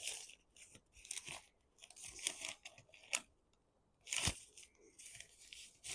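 Paper packaging rustling and crinkling as it is handled, in irregular crackly bursts with a few sharper snaps, the loudest a little after four seconds in.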